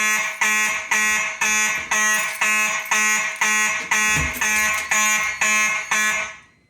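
Faraday mechanical fire alarm horns sounding in even pulses, about two a second, with the system in alarm from a pulled Simplex pull station. There is a low thump about four seconds in, and the horns cut off suddenly just before the end.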